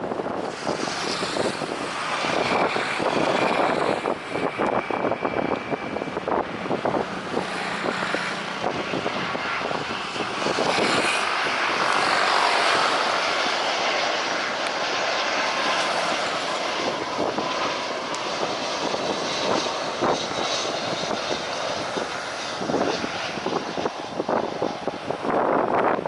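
Jet airliner's engines, a rushing whine with a few faint steady tones, loudest around the middle, over wind buffeting the microphone.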